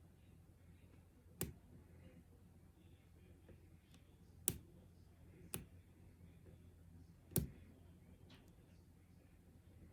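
Lock pick working the pins of a pin-tumbler challenge lock held under tension: four sharp, separate clicks a second or more apart, with a few fainter ticks.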